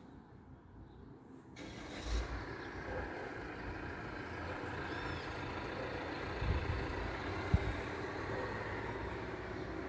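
Steady street traffic noise that swells up suddenly about a second and a half in and then holds, with one short sharp knock about three quarters of the way through.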